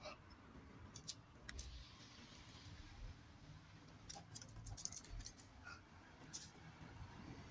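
Faint scattered clicks and light metallic jingling from two dogs moving about and sniffing each other on concrete, with a cluster of quick clicks in the middle.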